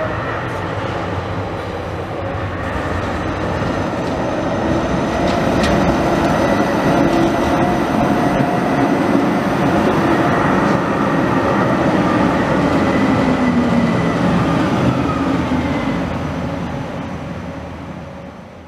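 Articulated SL95 tram running past on street track: wheels rumbling on the rails with a steady high tone and a lower tone that falls in pitch. The sound swells as it comes close, then fades near the end and cuts off.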